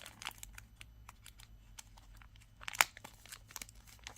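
A small bead packet crinkling and crackling in the hands as a pendant is worked out of it, in scattered light clicks with one sharper crackle nearly three seconds in.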